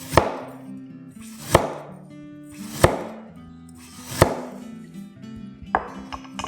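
Four sharp knocks about a second and a half apart, each with a short swish before it, as four slices of ginger are added one by one to the chicken wing marinade, with a smaller knock near the end. Background music plays underneath.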